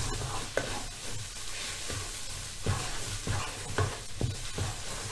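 A spatula stirring and scraping a pureed paste as it dry-fries in a pan without oil, with a steady sizzling hiss as its moisture cooks off. Short scraping strokes come roughly every half second.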